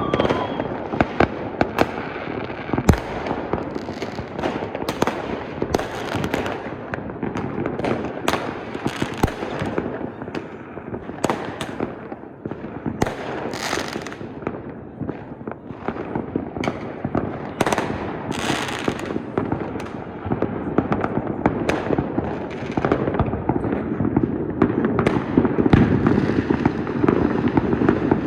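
Fireworks display: a continuous barrage of firework bangs and crackling bursts, many overlapping. The barrage grows denser and fuller near the end.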